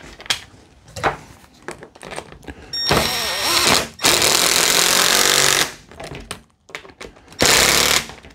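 Cordless screw gun driving the armrest screws into an office chair's backrest frame, in three runs: about a second starting some three seconds in, a longer stretch of about a second and a half right after, and a short run near the end. Light handling clicks come between the runs.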